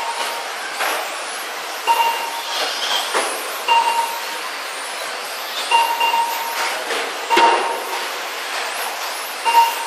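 Electric radio-controlled touring cars racing: a steady whirr of motors and tyres, swelling as cars speed past. Short electronic beeps every second or two come from the lap-timing system as cars cross the line.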